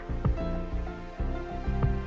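Background music with a pulsing bass line, held melodic notes and percussive hits.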